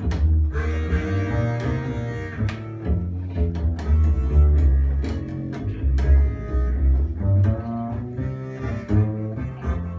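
Chromatic harmonica playing a slow melody over a plucked upright double bass, a harmonica and bass jazz duo.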